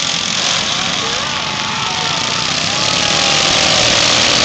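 Several racing riding-lawnmower engines running at speed together, their pitches rising and falling as the drivers work the throttle, over a steady hiss. The sound grows louder about three seconds in as the pack comes past.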